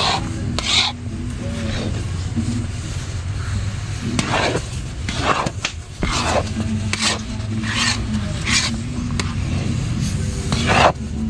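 A metal stirring utensil scraping around the bottom of a large aluminium pan through thick ube halaya, in about eight irregular strokes. A steady low hum runs underneath.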